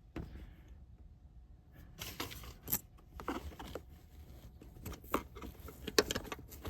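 Hand tools and metal parts clicking and clinking in irregular handling noises, with a few sharper ticks about 2.7 and 6 seconds in, while a bolt is being worked at.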